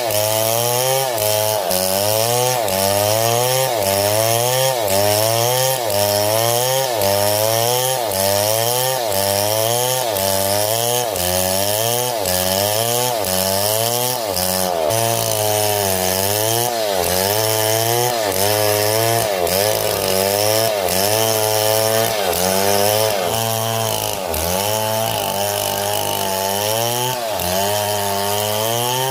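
Two-stroke chainsaw cutting, its engine pitch rising and falling about once a second as the chain loads and frees up in the wood.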